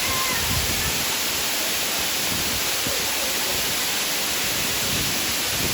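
Steady rushing roar of a waterfall, an even wash of noise that does not change.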